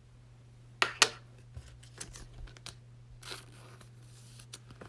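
Trading cards and their packaging being handled: two sharp clicks about a second in, then faint scattered rustling and tapping.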